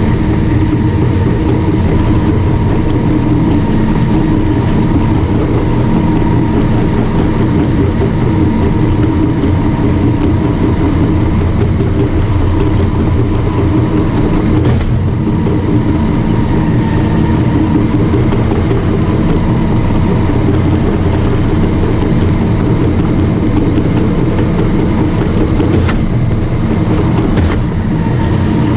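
Caterpillar D5 bulldozer's diesel engine running steadily, with a few brief knocks about halfway through and near the end.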